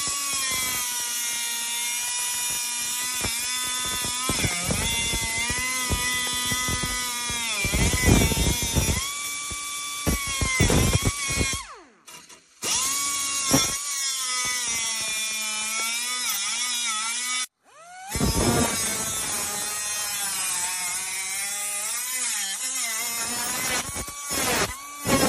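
Small air-powered cut-off wheel cutting steel plate. It gives a loud high whine whose pitch sags and recovers as the wheel bites into the metal, and it stops briefly twice.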